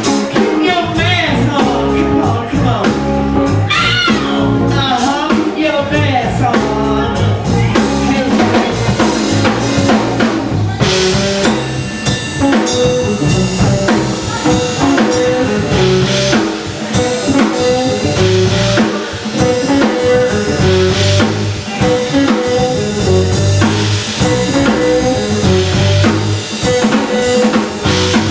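Live band playing a song with drum kit, bass and guitar. There are wavering, bending notes in the first few seconds, and a short repeated figure from about halfway through.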